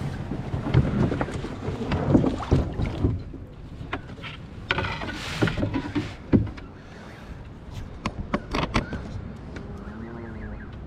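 Novocraft Canadian canoe hull running down the boat rollers at a lock: an uneven rumble with many knocks and clicks, busiest in the first few seconds.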